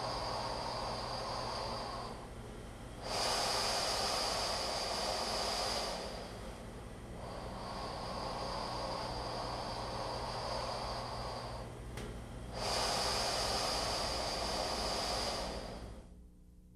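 Rescue breaths blown through the one-way valve of an emergency oxygen mask, heard as long breathy rushes of air. There are four in a row with short pauses between them, and every other one is louder.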